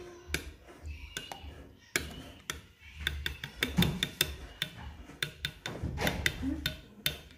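Mixing utensil clicking and knocking against a bowl as the chutney is stirred: quick irregular clicks, busiest about three to four seconds in and again around six to seven seconds in.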